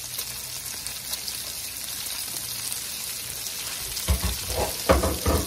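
Diced bacon and bell peppers sizzling and crackling in a nonstick skillet as a wooden spatula stirs them, with a few low knocks near the end.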